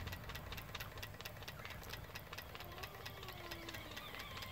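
Stuart Williamson model vertical steam engine running on live steam, with an even, rapid ticking of several ticks a second from the eccentric rod working on the eccentric sheave. From about two and a half seconds in, a child cries faintly.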